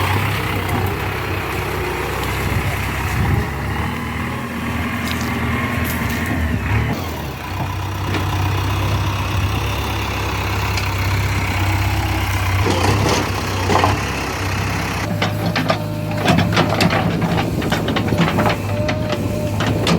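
JCB 3DX backhoe loader's diesel engine running steadily, its pitch shifting a few times as the machine works. Over the last few seconds repeated sharp clanks and rattles join in.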